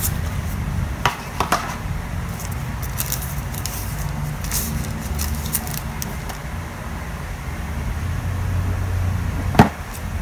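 Cardboard phone-box packaging and a paper insert being handled: light rustling and small taps, with two sharp ticks about a second in and a louder click near the end, over a steady low rumble.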